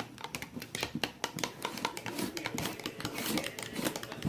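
Light, irregular clicking and tapping of kitchen utensils, several quick ticks a second, with a faint voice briefly in the middle.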